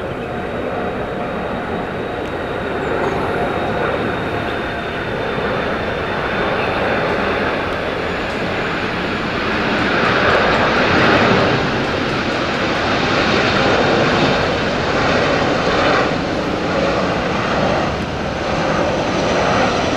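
Boeing 747 jet engines at approach power as the airliner passes low overhead on final approach: a loud rushing roar that builds to its loudest about halfway through and stays loud, with a thin high whine in the first few seconds.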